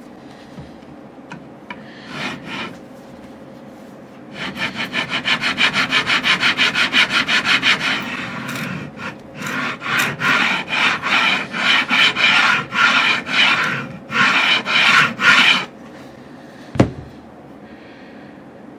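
Fret ends along the edge of a Stelling banjo's fretboard being filed with a block-held file, a rhythmic rasping of quick even strokes, about four a second, that turn a little slower and more spaced after a pause. A single sharp knock near the end.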